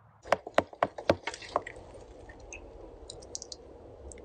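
A black plastic bucket of worms and damp bedding being handled: a quick run of about five sharp knocks in the first second, then faint scattered ticks.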